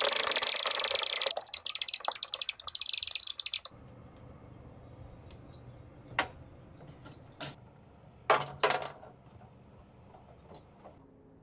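Rapid metallic scraping that stops abruptly about three and a half seconds in, followed by a few scattered metallic clicks, two sharp clinks close together the loudest of them.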